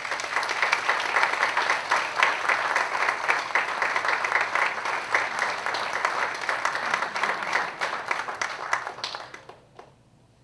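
Audience applause: many hands clapping together densely, dying away near the end.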